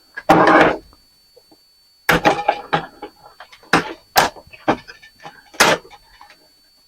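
Metal and plastic parts of a CD/DVD drive being handled and taken apart by hand: a run of clanks and rattles with several sharp knocks.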